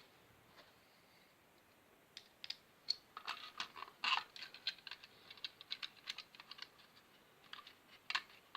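Small plastic clicks, taps and scrapes from a wall socket faceplate being handled and pressed back against its wall box. The clicks start about two seconds in, come in quick irregular runs, and the last one comes near the end.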